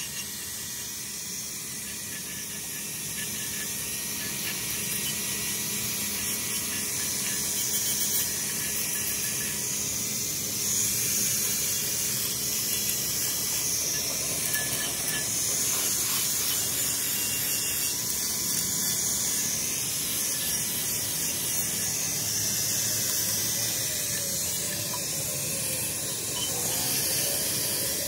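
Electric angle grinder running, its abrasive disc grinding paint and rust off a steel cylinder from a hydraulic jack: a steady high-pitched hiss of disc on metal over the motor's whine, rising a little in level where the disc is pressed harder.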